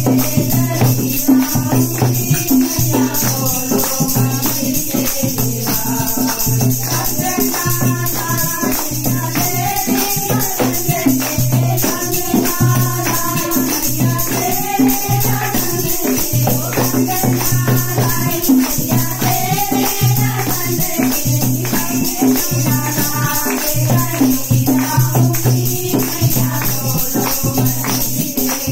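Group of women singing a Hindi devotional bhajan together, clapping along in a steady rhythm with rattling hand percussion keeping the beat.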